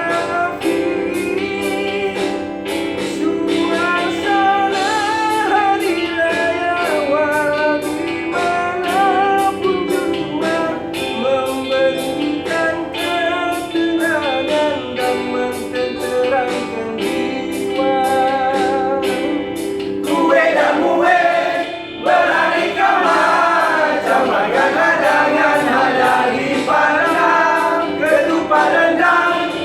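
Background music with singing over a steady beat; from about twenty seconds in, a fuller chorus of voices joins.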